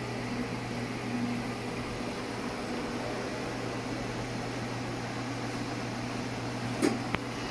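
Haas VF-3 CNC vertical machining centre running a program: a steady mechanical hum, with two sharp clicks near the end.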